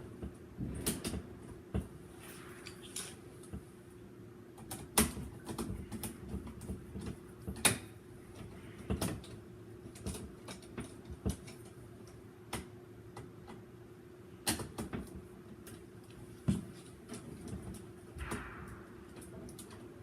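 Irregular clicks, taps and knocks of hands working wires and tools during electrical wiring work, a few of them sharper and louder, over a steady low hum.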